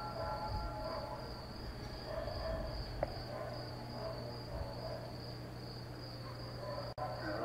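Cicadas droning steadily on one high pitch, with the faint wavering voices of distant calls to prayer behind them and a single click about three seconds in.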